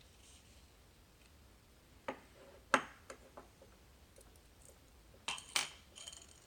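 Small metal lock parts and tools clinking and tapping against each other during disassembly of a pin-tumbler lock: a few sharp clicks about two to three seconds in, then a second cluster of clinks with a brief metallic ring about five to six seconds in.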